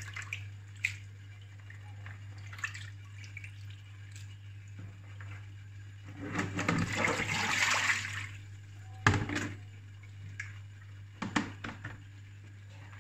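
Hands sloshing and splashing in a bowl of rinse water as pieces of wet beef tripe are lifted out and dropped into a steel colander. The splashing is loudest about six to eight seconds in, with a sharp knock about nine seconds in and a low steady hum underneath.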